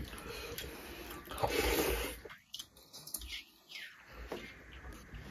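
Eating sounds: chewing and mouth clicks, with fingers mixing rice and curry on a steel plate, as scattered short clicks and soft rustles.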